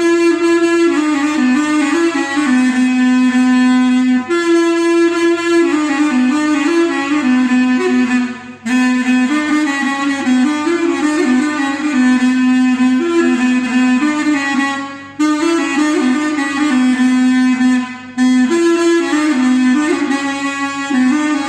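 A reed wind instrument playing a Turkish folk melody solo, in phrases broken by brief pauses.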